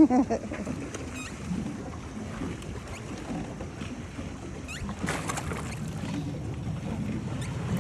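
Pedal boat moving across the water, a steady low wash of churning and lapping water, with a brief louder splash-like rush about five seconds in.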